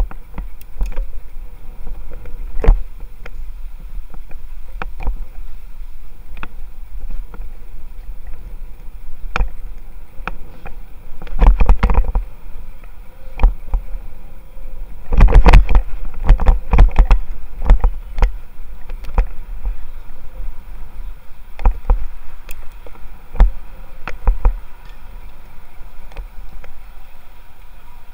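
Bicycle riding over tarmac: steady wind and road rumble with frequent sharp knocks and rattles from bumps in the surface, a cluster of them about twelve seconds in and a longer run from about fifteen to eighteen seconds in.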